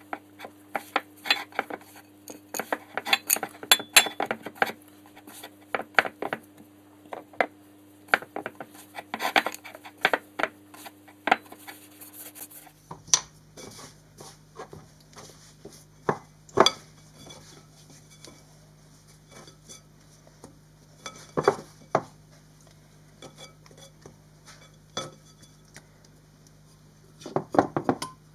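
Hands folding and kneading soft bread dough in a ceramic mixing bowl, with irregular sharp clicks and knocks against the bowl. The clicks come thick and fast at first and grow sparser about halfway through.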